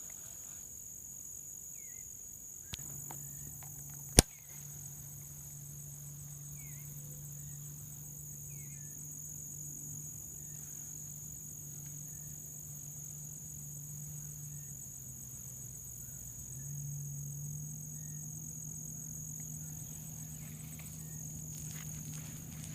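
Steady high-pitched insect chirring, like crickets. A low steady hum joins about three seconds in and gets a little louder past the middle, and a single sharp click comes about four seconds in.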